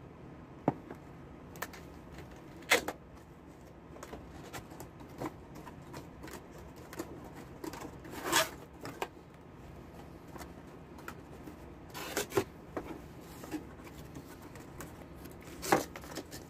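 Cardboard drill box being opened and handled: irregular rustles and scrapes of cardboard flaps and packaging, with a few sharper snaps and knocks, the clearest about 3, 8, 12 and 16 seconds in.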